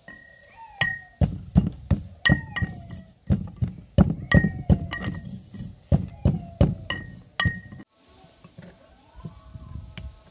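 Brass mortar and pestle pounding peppercorns: sharp metallic strikes that ring, about two to three a second, which stop about three-quarters of the way through; a few faint clinks follow.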